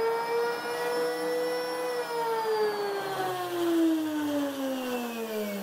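A c.1957 Bridges-Tool Power electric drill motor, wired straight to the mains with its switch removed, running on a test start with a steady high whine. About two seconds in, the motor slows and its whine falls steadily in pitch.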